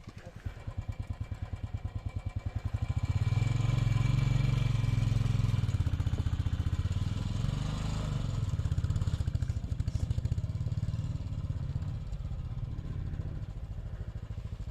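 Motorcycle engine running with an even low pulse. It gets louder about three seconds in, then eases off after about nine seconds.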